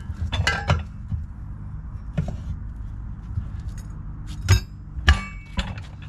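Steel tire spoons clinking and knocking against a steel wheel rim while a tire is being pried off it: a handful of sharp metallic strikes, the loudest about five seconds in.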